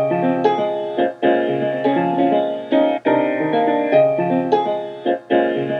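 A short piano music loop playing back with copies repeated end to end. Where one copy joins the next there is a small hiccup, a little bit of space left by the silent lead-in at the start of the file, before the piano starts to play.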